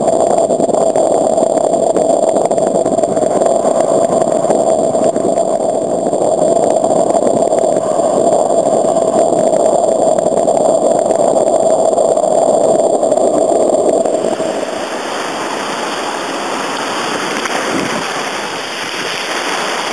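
Sea water rushing and churning around kayaks in breaking surf, a loud, steady wash; about fourteen seconds in it changes to a broader, slightly quieter hiss.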